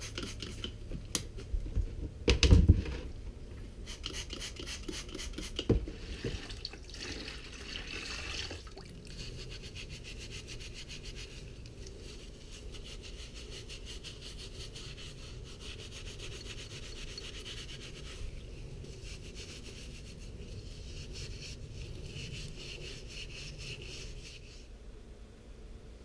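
A trigger spray bottle spritzing cleaner in quick bursts onto a two-stroke dirt-bike cylinder, with a single knock about two and a half seconds in. From about six seconds in the cylinder is scrubbed by hand over a tub of cleaner, a steady scratchy rubbing that stops shortly before the end.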